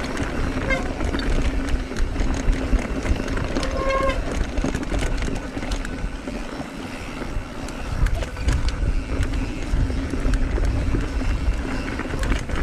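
Mountain bike riding over rocky singletrack: steady wind rumble on the microphone with scattered clicks and rattles from the tyres and bike.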